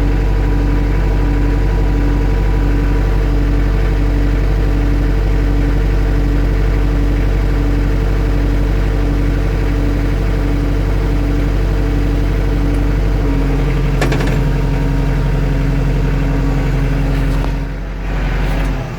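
Kubota L4330HSTC tractor's diesel engine running steadily at idle, with a regular pulse in its hum that stops about thirteen seconds in, then dying out abruptly near the end. It is an intermittent stall that the owner likens to the fuel being shut off all at once.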